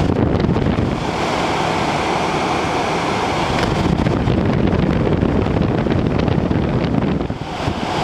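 General Electric window air conditioner's fan running, its airflow buffeting the microphone as a loud, steady wind rumble that eases briefly near the end.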